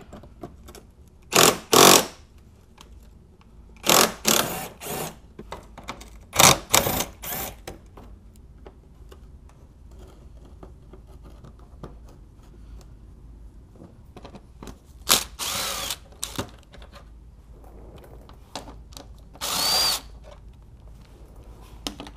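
Cordless drill/driver running in short bursts of whirring, several seconds apart, as it spins out the bumper cover's screws and bolts. The pitch drops as the motor stops at the end of a run.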